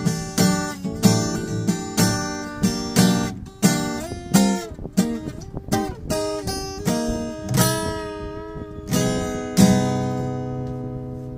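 Acoustic guitar being played to test how it sounds with its pickguard fitted: a run of picked chords and single notes, some sliding in pitch, then a chord struck about ten seconds in and left to ring.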